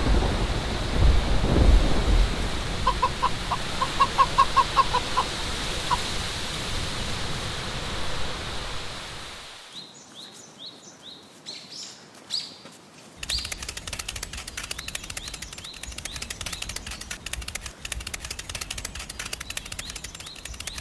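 Steady rain-like noise that fades out about nine seconds in. Then come short falling bird chirps, and from about thirteen seconds a fast, dense fluttering patter like wingbeats.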